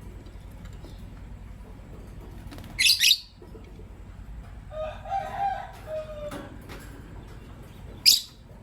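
Lovebirds calling: two short, loud, shrill calls, one about three seconds in and one near the end, with softer, lower chattering between them.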